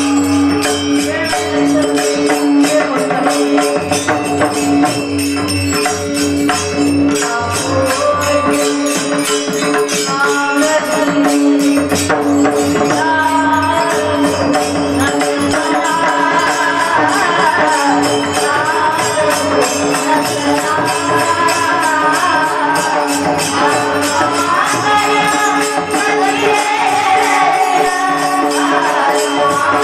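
A woman singing a Marathi devotional bhajan, accompanied by a harmonium drone and a steady clashing of small hand cymbals (taal).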